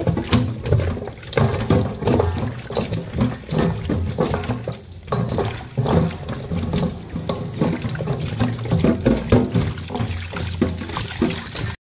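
Tap water running into a stainless steel sink bowl while hands rub and toss raw chicken feet under the stream, with irregular splashing and wet knocking. It cuts off abruptly near the end.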